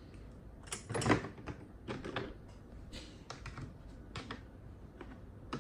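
Metal sockets and hand tools clicking and rattling against each other and the moulded tool-case tray as they are put back and handled: a series of light, irregular clicks, the strongest about a second in.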